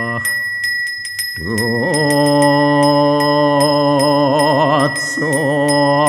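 A man chanting a mantra in long held notes with a wavering pitch, pausing for breath about half a second in and again near the end. Under the voice a genta, the Balinese priest's handbell, is rung steadily, giving a continuous high ringing.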